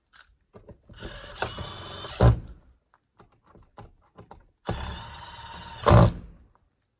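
A cordless drill/driver runs twice, for about a second each time, driving the screws of a plastic cut-in electrical box so its ears pull tight against the siding block. Each run ends in a sharp knock as the screw seats.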